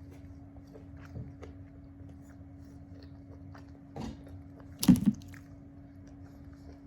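Close-miked eating: a person chewing and biting food, with soft mouth clicks, a short bite about four seconds in and a loud double crunch about five seconds in, over a steady low hum.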